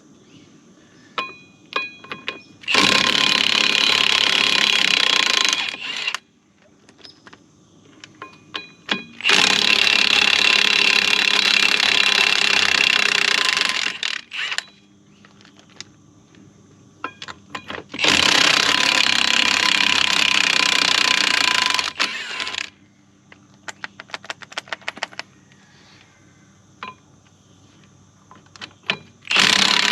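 Impact wrench hammering on the skid steer's sprocket bolts in three runs of about three to five seconds each, with a fourth starting near the end. Between runs come scattered metallic clicks and clinks of sockets and bolts being handled, including a quick string of clicks about two thirds of the way through.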